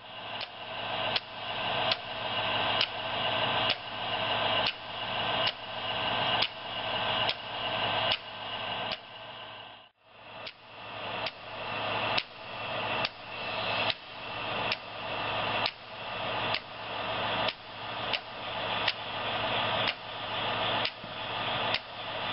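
A model railroad turnout's switch machine, worked by an infrared-sensor relay circuit, snaps over again and again, a little more than once a second. Each snap ends a swelling electrical buzz. The cycle breaks off briefly about ten seconds in, then carries on.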